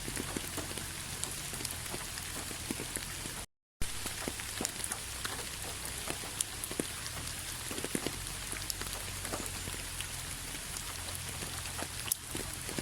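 Steady rainfall: an even hiss scattered with separate sharp drop ticks. The sound cuts out completely for a split second about three and a half seconds in, then resumes.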